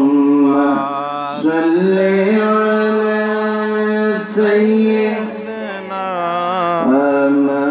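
A man's voice chanting an Islamic devotional invocation in long, drawn-out melodic phrases, amplified through a microphone, with brief breaks between phrases.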